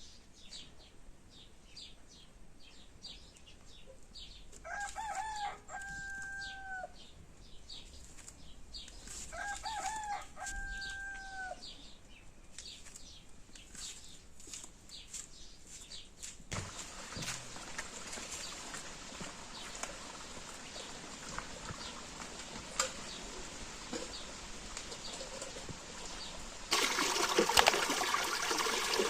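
A rooster crows twice, each crow ending in a long held note, over the quick chirping of small birds. Past the halfway mark a steady hiss takes over, louder near the end.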